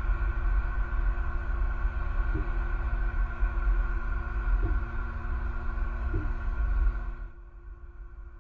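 Low, steady rumble of road traffic with a constant hum over it. About seven seconds in it drops to a quieter hum.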